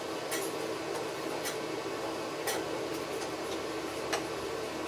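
A few faint, irregular clicks of a small screwdriver turning the brass pilot jet back into a Briggs & Stratton carburetor, over a steady background hum.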